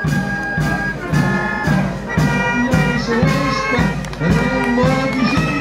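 Music played by a brass band: a melody of held notes over a low accompaniment.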